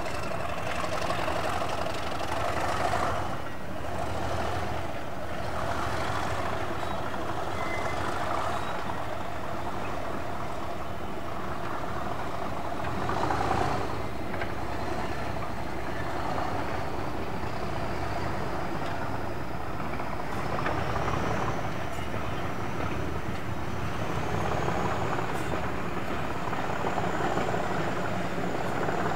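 Diesel locomotive engine running with a steady low rumble. A thin high whine rises steadily in pitch through the second half.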